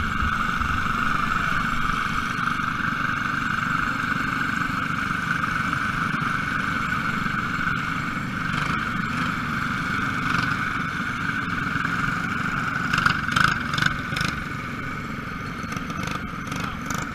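Small race car engines running steadily around the track, a continuous high drone. A few sharp clatters come near the end.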